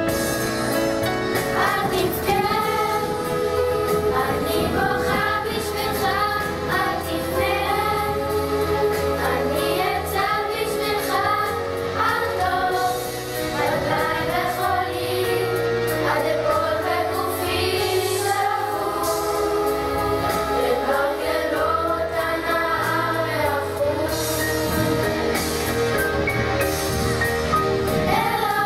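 A song sung to instrumental accompaniment, the sung melody carried over sustained low bass notes.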